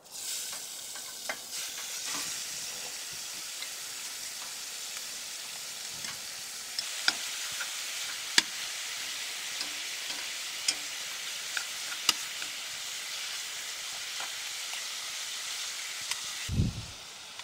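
Ground beef sizzling in hot oil in a pot on a wood stove, with chopsticks clicking against the pot as it is stirred. Near the end there is a low thump, and the sizzle drops away.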